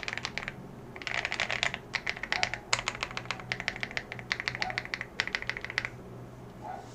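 Fast typing on a CIDOO ABM066 mechanical keyboard with lubed KTT Grapefruit linear switches, keystrokes clattering in quick bursts with short pauses, stopping about six seconds in. Picked up through a low-quality headphone mic with a faint steady hum under it.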